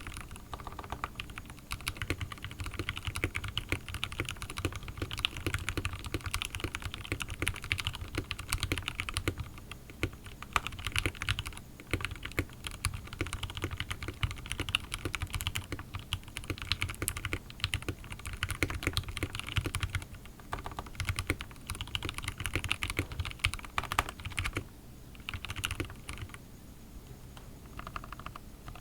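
Fast, continuous typing on a Royal Kludge RK61 mechanical keyboard with Gateron Red linear switches lubed with Krytox 205g0. The keystrokes thin out briefly near the end, over a steady low hum.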